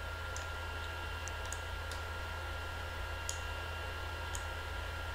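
A handful of faint, scattered computer mouse button clicks over a steady low electrical hum and a faint steady high whine.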